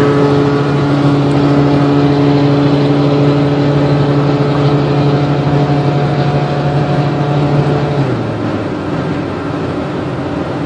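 Car engine and road noise heard from inside the cabin at highway speed: a steady engine drone over tyre rumble. About eight seconds in, the drone drops in pitch and gets a little quieter as the car eases off and falls back.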